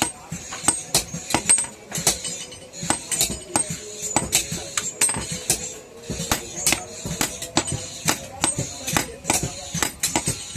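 Hand hammer striking hot iron on an anvil in a quick, uneven run of about two to three blows a second, each blow a sharp metallic clink with a brief ring.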